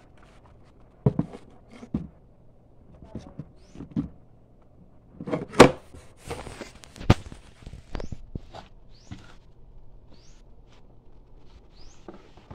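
Handling noise: an uneven string of plastic knocks and clicks, the loudest two a little after halfway, with short high rising chirps between them.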